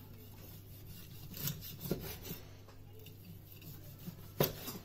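A chef's knife slicing through roast pork fillet on a wooden chopping board: a few rasping cutting strokes, and one sharp knock near the end as the blade meets the board.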